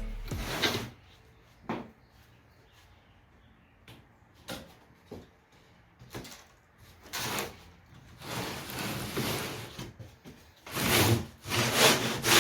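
Plywood panels being slid and handled: irregular scrapes and knocks of wood rubbing on wood, with a longer rub in the second half and louder scrapes near the end.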